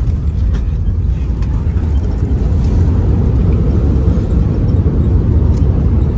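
Airbus A380 cabin noise on the approach to landing: a loud, steady low rumble, with a few faint rattles in the first second or so.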